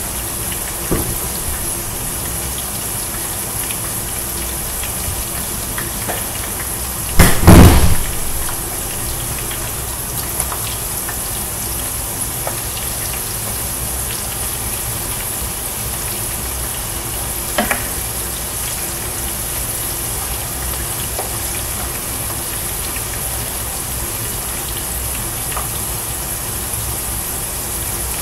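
Hot oil sizzling steadily as french fries deep-fry in a pan on a gas burner. A loud bump about seven seconds in and a faint click around the eighteen-second mark.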